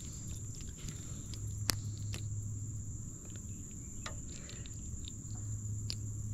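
Riverside ambience: a steady high-pitched insect drone over a low hum, with a few sharp clicks scattered through it, the loudest about two seconds in.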